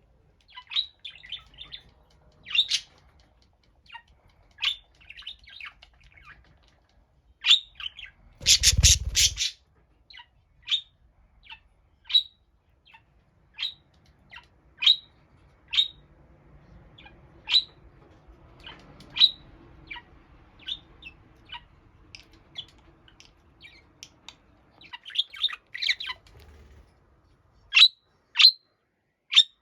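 A lone pet budgerigar calling: short, sharp chirps about once a second, with clusters of quicker chatter. About nine seconds in comes a louder, noisier burst lasting about a second.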